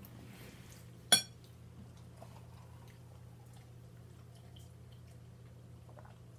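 A single sharp, ringing clink of tableware about a second in, over faint small eating sounds and a low steady hum.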